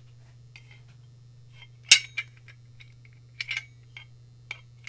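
International Closers 3010-JO offset door-closer arm being worked by hand in its aluminium track: a series of irregular sharp metallic clicks and clinks as the arm and slide block move and knock against the track, the loudest about two seconds in.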